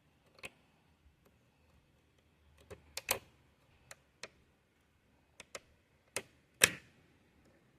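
Sharp plastic clicks and snaps from handling a car fuse box, its puller and a 15A blade fuse as the fuse is worked out. There are about ten clicks at uneven intervals, the loudest snap about two-thirds of the way through.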